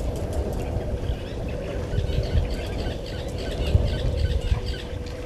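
Small birds chirping and twittering in quick short notes over a low, uneven rumble, with a faint steady hum underneath.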